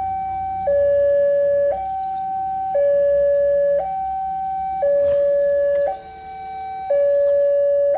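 Railway level-crossing warning alarm: a loud electronic two-tone signal switching between a higher and a lower note about once a second, warning that a train is approaching. It briefly dips about six seconds in.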